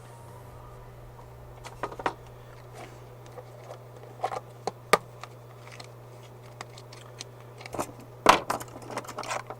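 Scattered clicks and taps of small hand tools and wire being handled on a workbench during wire splicing. The loudest knock comes a little after eight seconds in, with a steady low hum underneath throughout.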